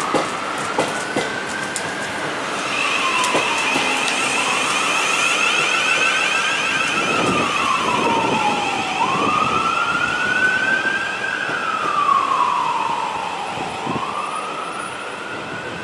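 Emergency-vehicle siren on a slow wail, one tone rising and falling about once every four and a half seconds, over a steady hiss that swells from about three seconds in and eases after about ten.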